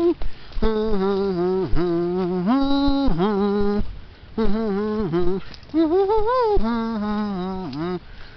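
A voice humming a slow tune in long, wavering held notes, in several phrases with a short break about four seconds in.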